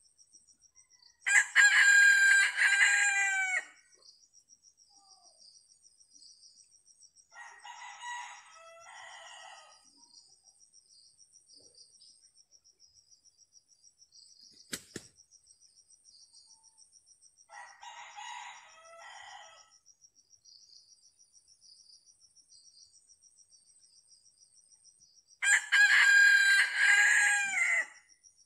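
Red junglefowl (labuyo) rooster crowing loudly twice, once near the start and once near the end, with two fainter crows between. Crickets trill steadily behind.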